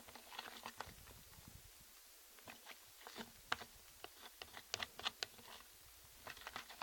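Spoon stirring fluffy slime made of glue and shaving foam in a bowl, just after borax water has been added as it starts to set: faint scattered sticky clicks and squelches.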